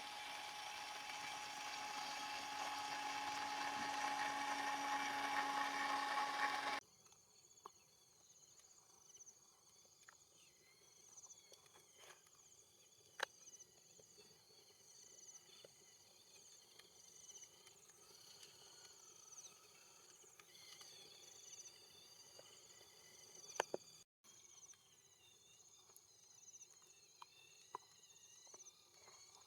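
A small electric motor whining and growing louder for about seven seconds, then cutting off suddenly. After that, insects chirp steadily in a high pitch, with a few faint clicks.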